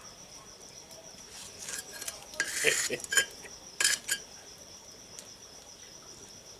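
Crickets trilling steadily, with a short run of sharp clicks and scraping noises about two to four seconds in.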